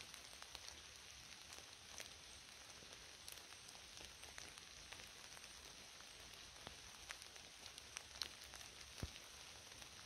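Rain falling in a forest: a faint, steady hiss with scattered ticks of single drops, a few of them louder.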